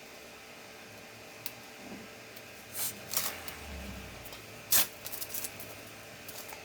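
Laptop parts being handled: scattered small plastic clicks and rustles, the loudest a single sharp click about five seconds in.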